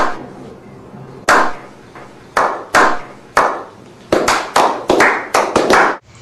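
A small group of men's slow clap: single hand claps with a short ring after each, about a second apart at first, then speeding up to several a second near the end.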